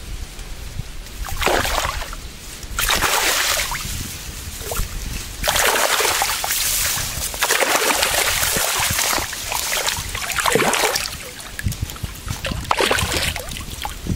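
A large wild carp (sazan) thrashing in shallow water among reeds: repeated splashing in bursts, the longest and loudest lasting about four seconds in the middle.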